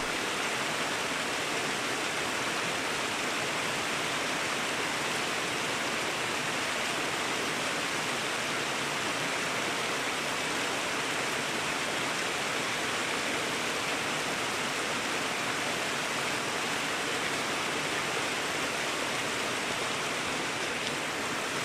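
Small mountain creek cascading over rocks, a steady rushing splash of water.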